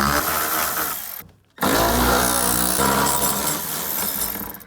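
Handheld power tool running in two runs with a brief stop about a second and a half in, taking off the bolts that hold the fuel tank flap and straps under a 1973 Ford Pinto.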